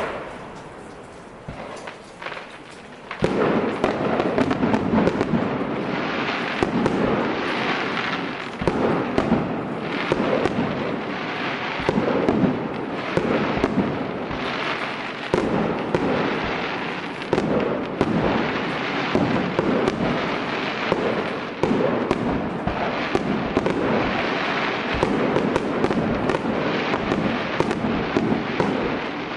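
Fireworks display: a few separate bangs, then about three seconds in a dense barrage of bursts and crackling begins and continues without a break.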